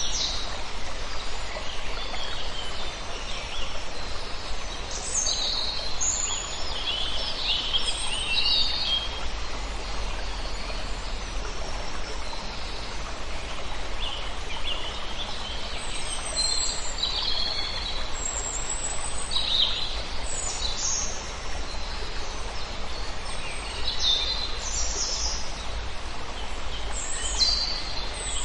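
Songbirds chirping and whistling on and off over a steady rush of flowing water, with a low rumble underneath.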